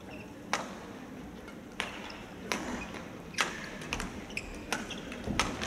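Badminton rally: sharp strikes of rackets on the shuttlecock, about one a second, each a short crack.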